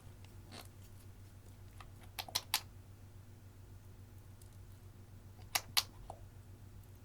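Short sharp clicks and taps of small objects being handled: three quick clicks about two seconds in, then two more and a softer one near the six-second mark, over a low steady hum.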